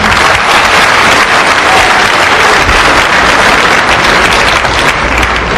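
Audience applauding with steady, dense clapping that cuts off suddenly at the end.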